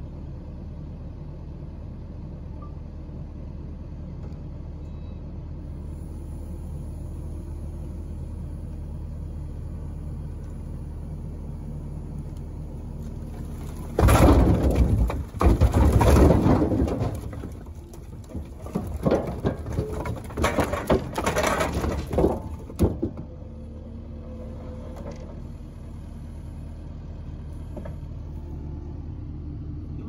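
Split hardwood firewood dumped from a skid steer's crate into a trailer bed: a loud clatter of logs tumbling and knocking for about three seconds, then scattered clunks of pieces sliding and settling for several seconds more. An engine runs steadily underneath.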